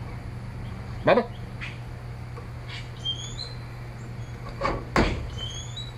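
Plastic clicks and a sharp snap near the end as a Samsung Galaxy Tab 4's back cover is pried at, with a few short high chirps from a bird around the middle.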